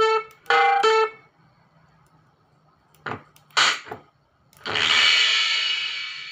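Drum and percussion samples played by DFPlayer MP3 modules through a loudspeaker as keypad buttons are pressed. Three short pitched notes in the first second, two sharp drum hits around three seconds in, then a long ringing cymbal crash near the end.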